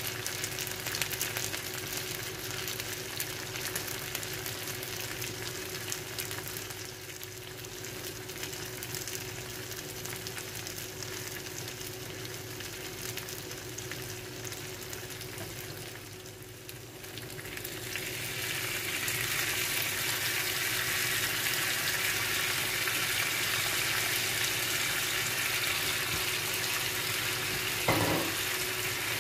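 Satay chicken and beef sizzling on a hot cast-iron sizzler platter with a steady hiss. About eighteen seconds in the sizzle grows louder and brighter as satay sauce hits the hot plate, and a short knock comes near the end.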